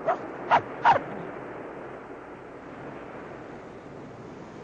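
A dog yips three times in quick succession within the first second, over a steady hiss of surf and wind.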